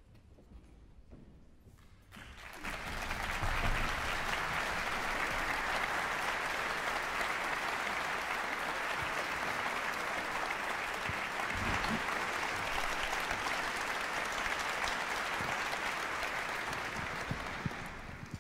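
Audience applauding, starting suddenly about two seconds in, holding steady, then dying away near the end.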